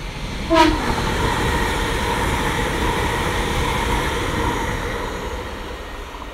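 A Class 397 electric multiple unit passing close at speed: a brief sharp tone as it arrives about half a second in, then a steady rush of wheel and air noise with a faint whine, fading as the train goes away.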